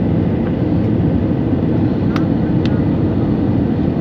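Steady low roar of cabin noise inside an airliner in flight, with a couple of faint short ticks about two seconds in.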